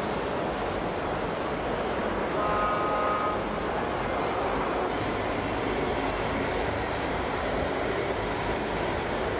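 Steady mechanical rumble with a horn sounding once for about a second, about two and a half seconds in; a faint high whine comes in about halfway through.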